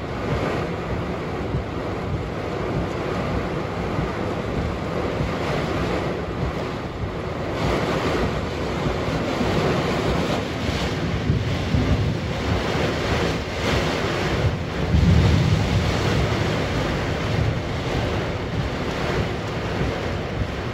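Torrential downpour in gusty wind: a dense, continuous rush of heavy rain, with wind buffeting the microphone, loudest about fifteen seconds in.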